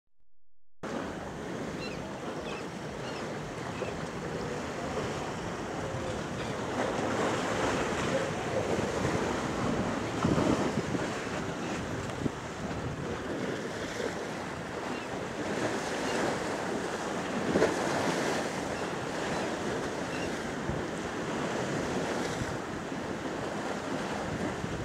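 Sea waves washing against a rocky shore, a steady rush that swells louder several times, with wind buffeting the microphone.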